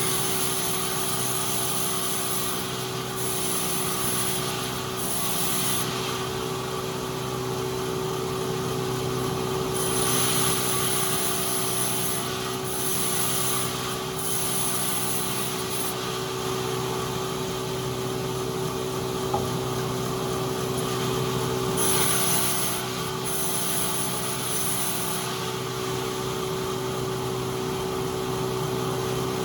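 Sawmill machinery running with a steady hum, with stretches of high hissing that come and go every few seconds.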